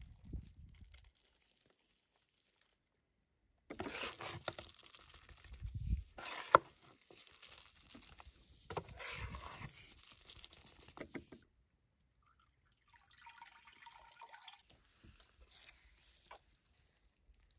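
Two broad cleaver blades scraping and chopping a wet mash of crushed garlic and rosemary on a wooden cutting board, starting a few seconds in, with one sharp knock of a blade on the board. Near the end, fainter, a knife slicing through raw steak.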